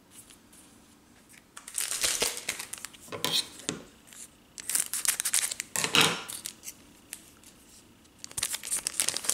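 Scissors snipping across the top of a hockey-card pack, with the wrapper crinkling as it is handled and opened, in three bursts of rustling.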